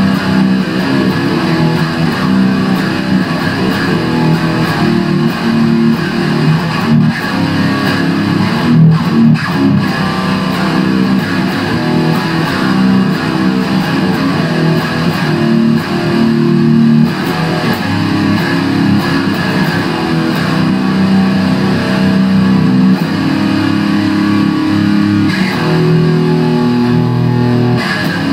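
Epiphone SG Special electric guitar played loud through a Line 6 Spider III amp with a distorted heavy-metal tone, improvising riffs that run on without a break.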